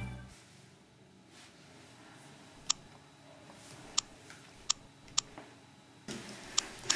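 Short, sharp electronic clicks of a touch-screen interface, each with a faint tone, about four of them a second or so apart, then two more near the end over faint room noise. Before them, background music ends just as the clicks begin.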